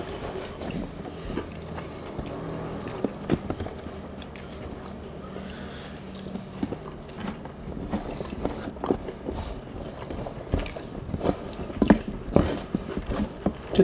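Close-up eating sounds: chewing, with scattered short clicks and taps that come more often near the end, as two people pick rice, noodles and chicken off a shared tray with their fingers.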